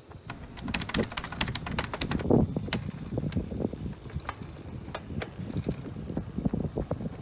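A runner's shoes striking an asphalt road in a steady stride, with a flurry of sharp clicks about a second in.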